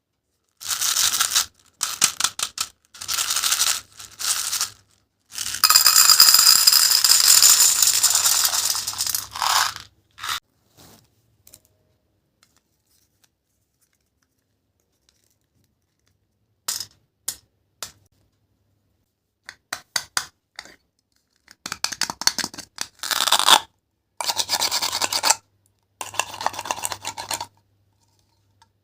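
Toy fruit being cut apart: repeated bursts of dry scraping and tearing. The longest burst lasts about four seconds, and a silent gap of several seconds falls in the middle.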